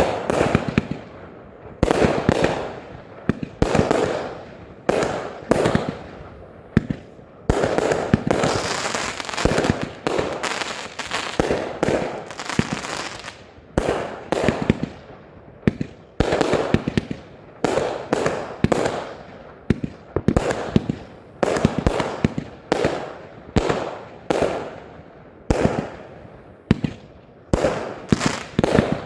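Klasek F2/F3 firework batteries (cakes) firing shot after shot: sharp bangs about every one to two seconds, each trailing off, with a denser, crackling stretch about a third of the way in.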